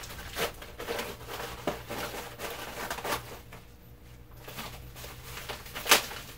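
Plastic mail packaging being torn open and handled: irregular crinkling and rustling, with a sharp rip just before the end that is the loudest sound.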